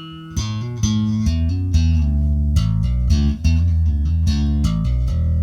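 Electric bass guitar played through an engaged Zipper optical compressor pedal: a run of plucked notes, ending on a held low note near the end.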